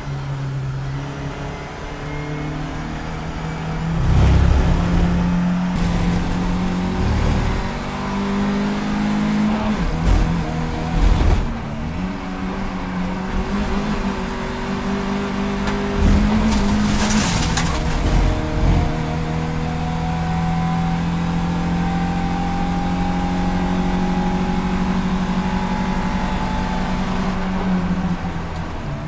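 BMW 318ti Cup race car's four-cylinder engine heard from inside the stripped cabin, pulling hard through the gears, with several sudden breaks in the note in the first half. In the last third the engine holds one gear and its pitch climbs slowly as the car gathers speed.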